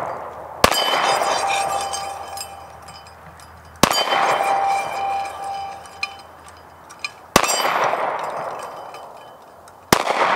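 Four shots from a Glock 26 Gen5 9mm pistol, spaced about three seconds apart, each with a long echo. After the first two shots a struck steel target rings with a clear tone.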